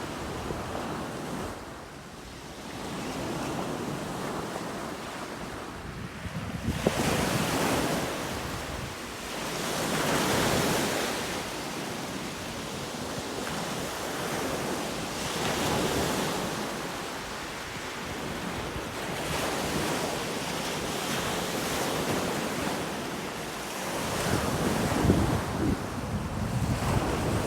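Ocean surf washing onto the shore in repeated swells every few seconds, with wind buffeting the microphone.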